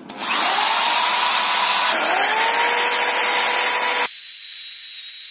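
iBell corded electric screwdriver-drill with a masonry bit boring into a brick: the motor whirs up to speed, sags and picks up again about two seconds in, then changes abruptly to a thinner, higher whine about four seconds in. Under heavy pressure the bit makes only slow progress in the brick.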